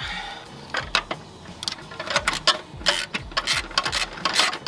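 Hand ratchet wrench clicking in quick runs as a bolt is worked by hand, with scattered sharper metal clicks between the runs.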